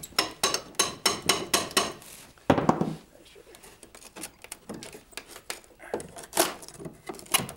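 Rapid hammer knocks on old ceiling framing, about five a second, as it is broken out. About two and a half seconds in comes a short crash of wood coming loose, then a few more scattered knocks.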